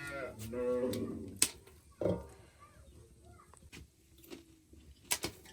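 A long, drawn-out animal call in the first second or so, followed by a few sharp knocks and clicks.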